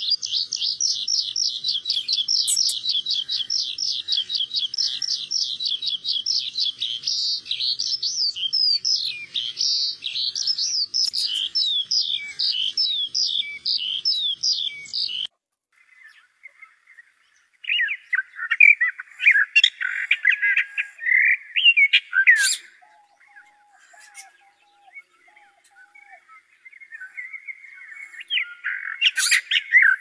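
A juvenile tern gives a fast, high, unbroken trill of calls for about fifteen seconds. After a short gap, a common whitethroat sings short, hurried, scratchy warbling phrases, two of them, the second near the end.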